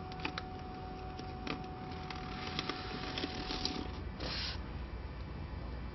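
Hands working the label web and parts of a label finishing machine: a run of small clicks and creaks from its plastic and metal parts, over a faint steady hum that stops a little before four seconds in. A short rustle of the paper label matrix follows just after.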